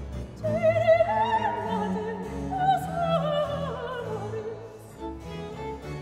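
A soprano singing one long phrase with vibrato, her line stepping downward, over a baroque string ensemble with continuo; the strings and bass carry on alone near the end.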